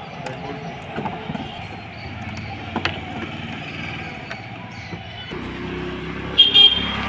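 Scattered sharp clicks of a screwdriver and plastic trim clips as a car's grille and radiator top cover are pried loose, over a low rumble that grows about five seconds in. Near the end comes a short, loud burst of plastic rattling and crackling.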